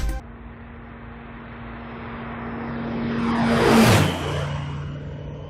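Low pass by a VL3 Evolution light aircraft with its Rotax 912 engine and propeller. The engine drone builds steadily to a loud peak as it passes overhead about four seconds in, then its pitch drops sharply and it fades as the aircraft flies away.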